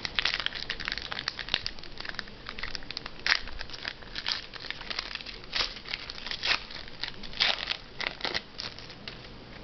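Trading-card packaging crinkling and cards being handled, in irregular short rustles, loudest about three seconds in and again about seven and a half seconds in.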